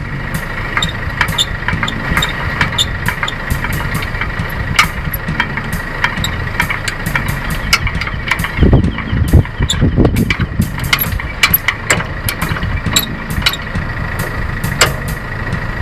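Tow vehicle's engine idling steadily, with scattered sharp metallic clicks as the trailer coupling's locking knob is worked by hand, and a few louder rumbling surges about nine to ten seconds in.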